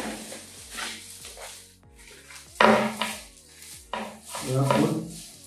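A keyboard in a clear plastic bag being pulled out of its cardboard box: the plastic crinkles and rustles in irregular bursts, with a loud crackle about two and a half seconds in.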